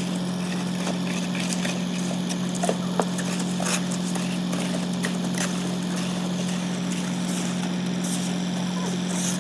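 Machine engine running at a steady drone, with scattered short knocks and clinks over it, a few of them sharper about three seconds in.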